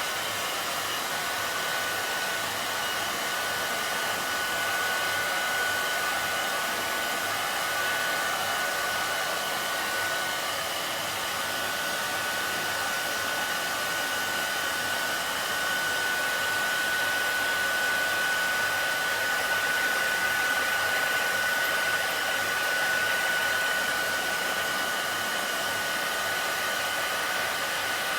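Hair dryer running steadily on medium heat, a constant rush of air with a thin, steady high whine over it.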